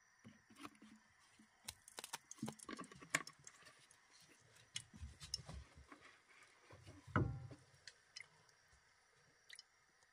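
Faint clicks and taps of an oil bottle and a frying pan being handled as vegetable oil is poured into the pan, with one louder knock about seven seconds in.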